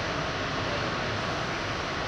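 Steady running noise heard inside an R68 New York City subway car moving through the tunnel: wheels on rail and traction motors making an even rumble and hiss.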